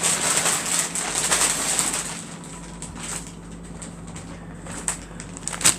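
Plastic food packaging crinkling and rustling as it is handled, loudest in the first two seconds, then quieter, with a sharp click near the end.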